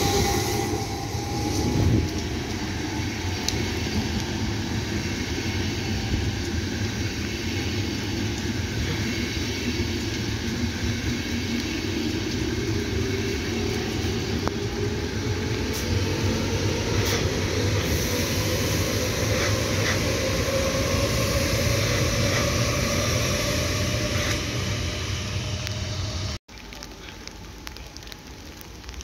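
Passenger trains passing: a double-deck regional train rolls by close at first, then a long train of blue-and-white passenger coaches runs past on a far track. Under it all is a steady rumble of wheels on rails, with a slowly rising whine and a few sharp clicks. Near the end the rumble cuts off abruptly, leaving the hiss of steady rain.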